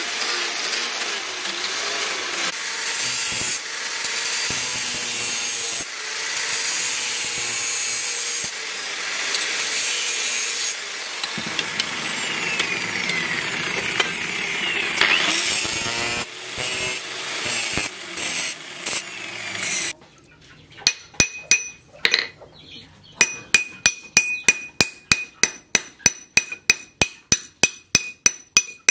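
Electric angle grinder with a sanding disc grinding a wooden knife handle, its motor pitch dipping and rising under changing pressure. About twenty seconds in this gives way to rapid light hammer taps, about four or five a second, each with a short metallic ring, as a metal ferrule is driven onto the handle's end.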